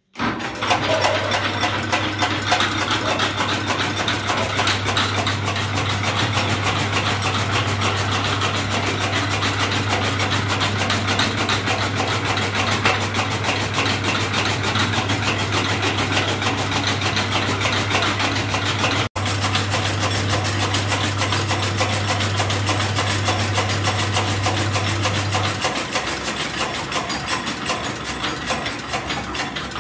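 Electric-motor-driven chaff cutter running, its flywheel-mounted blades chopping green maize stalks into fodder with a rapid clicking over a steady motor hum. The hum stops near the end while the cutter keeps turning.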